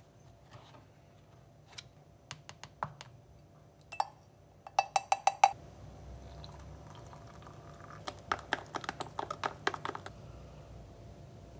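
Making a protein shake at a kitchen counter: scattered clicks as a plastic powder tub is opened and scooped, a quick run of ringing taps on glass about five seconds in, water poured into a glass mug, then a metal spoon clinking rapidly against the glass while stirring the powder in.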